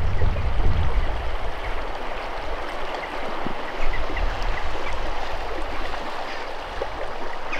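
A shallow river running low, its water rippling and rushing steadily over exposed rocks. A low rumble of wind on the microphone sits under it in the first second or so.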